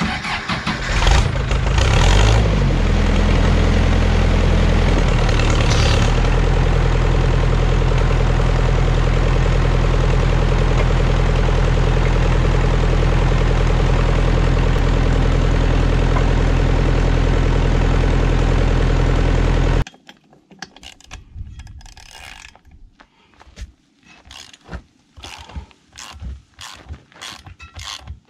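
A motor vehicle engine starting, revving briefly, then running at a steady idle before stopping abruptly about twenty seconds in. After that come a series of sharp, irregular mechanical clicks that grow quicker toward the end.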